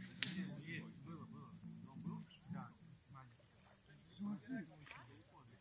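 Crickets chirring in a steady, continuous high-pitched hiss, with faint distant voices underneath.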